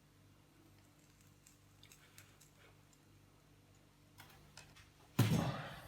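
Faint taps and clicks from handling small parts and tools, then a brief loud rushing noise near the end that fades quickly.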